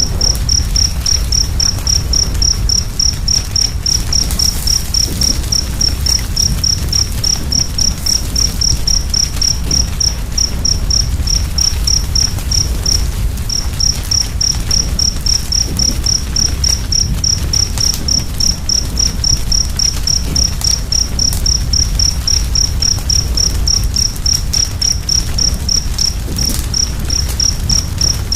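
A cricket chirping steadily, high-pitched and regular at about three chirps a second, with one brief pause a little under halfway. Beneath it is a low steady rumble and faint crackling from a wood fire.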